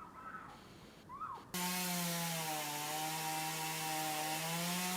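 A few faint bird chirps, then a chainsaw cuts in suddenly about a second and a half in and runs at high speed. Its pitch sags slightly through the middle and comes back up near the end.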